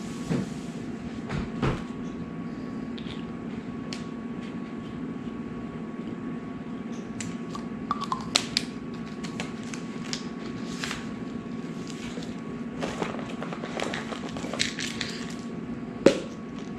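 Small clicks and handling sounds from a blood-glucose testing kit being worked by hand, a cluster of clicks about halfway through and a sharp click near the end. Under them runs a steady low hum with a faint high whine.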